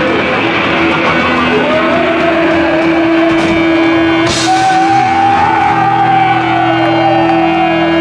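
Live punk rock band playing loud: distorted electric guitars, bass and drums with a singer's voice. A note is held through most of it, and sliding pitches come in about halfway, with a couple of cymbal-like crashes in the middle.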